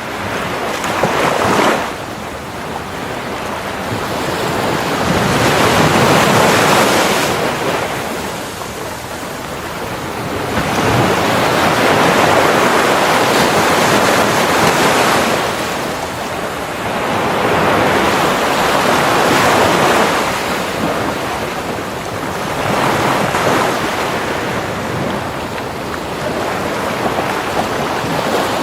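Surf breaking on a sandy beach: waves rush in and wash back in swells every few seconds, with some wind noise on the microphone.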